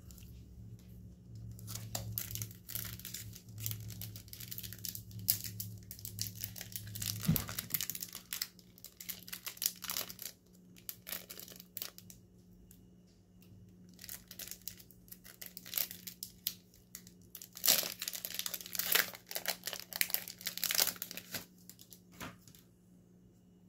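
Plastic card sleeves and a clear plastic tray crinkling and rustling as trading cards are handled and shuffled, in irregular spells of quick sharp rustles.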